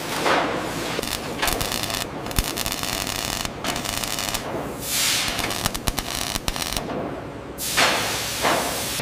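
Arc welding on steel car-body panels: a continuous crackling, sputtering arc with sharp pops, and several hissing bursts that sweep downward in pitch, one just after the start, one about five seconds in and two near the end.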